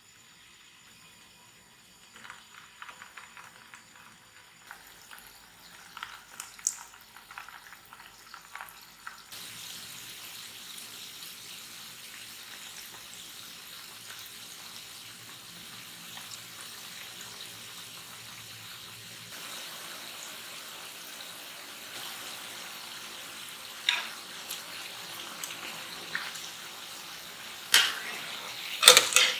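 Mashed-potato rounds frying in cooking oil: a steady sizzle with scattered crackles, and a few sharp knocks near the end.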